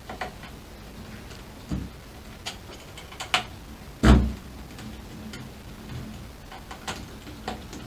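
Small screwdriver turning screws into a stepper motor's 3D-printed mount: scattered light clicks and ticks of the tool and screws, with one louder knock about four seconds in.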